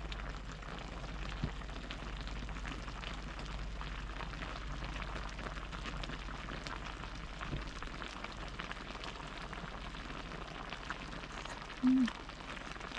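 Steady rain pattering, many fine drops ticking, over a low steady wind rumble on the microphone. A short low vocal hum near the end.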